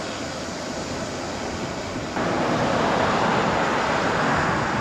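Wind rushing over the camera microphone while riding a road bike, a steady noise that suddenly gets louder about two seconds in.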